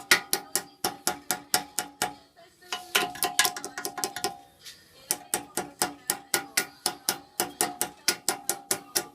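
Hammer blows on steel, fast runs of about five strikes a second, each with a metallic ring and with short pauses between runs: knocking away an obstruction on the motorcycle frame's steering head so the new front fork will fit.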